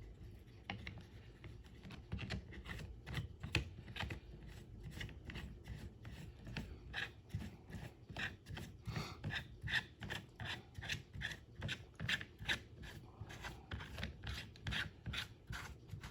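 Light clicks and scraping of metal and plastic parts being handled as the retaining nut is threaded back onto a small cordless handheld chainsaw's bar. The clicks come irregularly, a few a second, and grow busier about halfway through.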